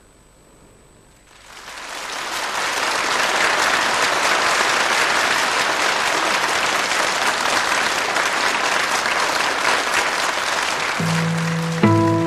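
Audience applause that starts after a moment of quiet, swells over about a second and then holds steady. Near the end a few low, sustained guitar notes come in over the clapping.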